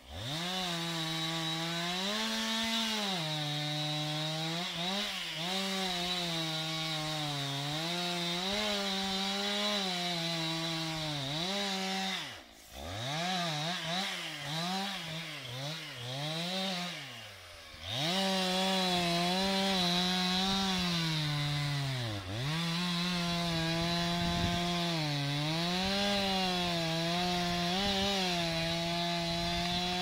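Two-stroke chainsaw cutting wood at full throttle, its pitch sagging and recovering as the chain loads in the cut. From about twelve to eighteen seconds in it twice drops off toward idle and is revved in quick blips, then runs steadily in the cut again.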